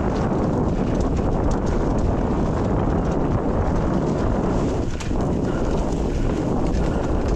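Mountain bike rattling and clattering over a rough dirt trail, with wind rushing over the microphone as a steady low rumble.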